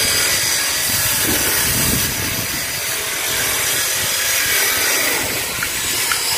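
Handheld electric power tool running steadily on wooden boards, a continuous loud, hissing motor-and-cutting noise.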